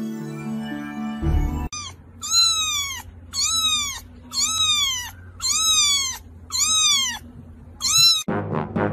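Young kitten meowing loudly and over and over: seven high calls, each rising then falling in pitch, about one a second.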